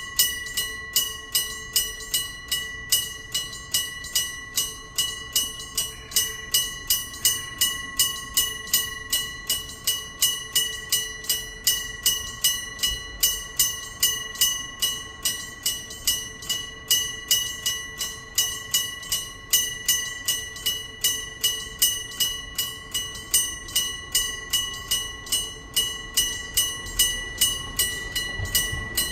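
Electric bell of a Japanese railway level crossing ringing, an old-style struck bell rather than an electronic chime: a steady, fast run of strokes, about two and a half a second, each with a ringing tone. Near the end a low rumble of the approaching train comes in under it.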